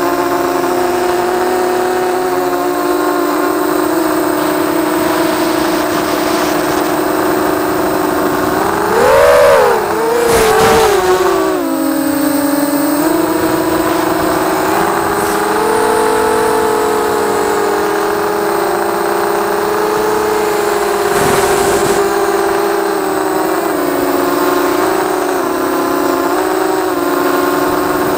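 FPV drone's electric motors and propellers whining, heard from the onboard camera, the pitch rising and falling with the throttle. The loudest, highest swells come about a third of the way in, twice in quick succession.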